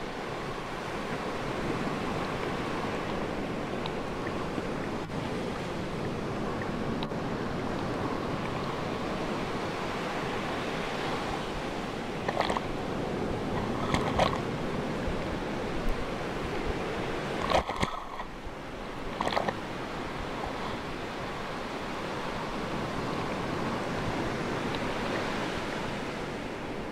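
Sea waves washing in a steady surf, with a few brief sharp sounds around the middle.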